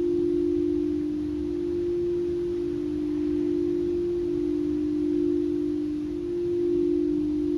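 Singing bowl sounding a sustained low, pure tone that wavers slowly and evenly.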